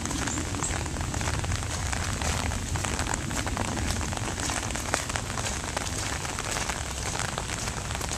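Heavy rain falling: a steady, dense patter of drops, with many separate drop hits ticking close by.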